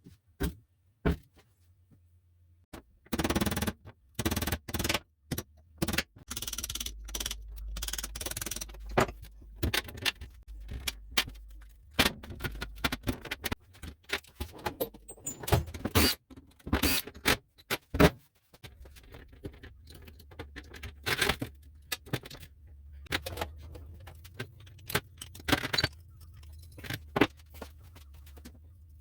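Metal tools and parts clinking and clanking as they are handled, a long irregular run of sharp knocks with stretches of scraping.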